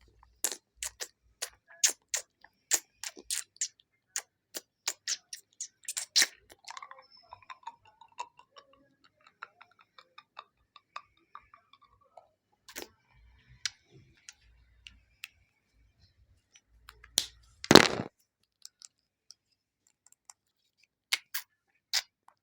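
Sharp, irregular clicks and taps close to the microphone, about two to three a second at first, then sparser, with one louder, longer burst about three-quarters of the way through.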